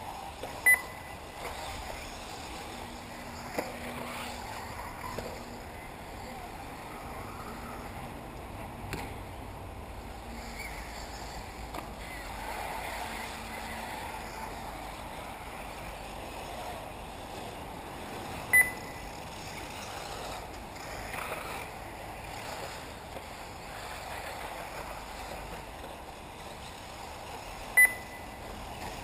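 Steady whir of 1/8-scale electric RC buggies racing around an off-road track, with three short high beeps: one near the start, one about two-thirds through and one near the end.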